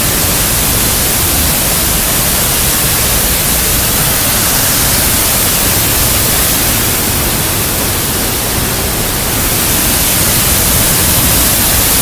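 Large waterfall in heavy flow, swollen by rain and snow, heard from right beside it: a loud, steady rush of falling water.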